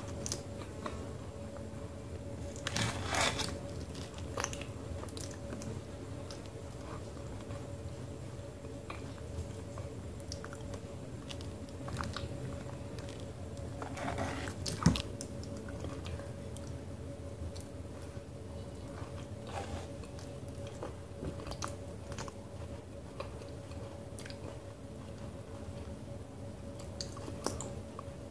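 Close-up mouth sounds of eating a thick paste of multani mitti (fuller's earth clay): wet chewing and smacking, with a few sharp clicks, the loudest about halfway through. A steady faint tone runs underneath.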